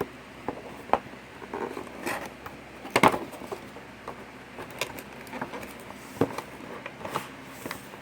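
A toy box and its packaging being opened and handled: scattered taps, clicks and light rustles, with the loudest knock about three seconds in.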